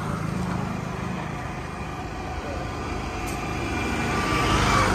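Diesel engine of a construction machine running steadily, growing louder toward the end.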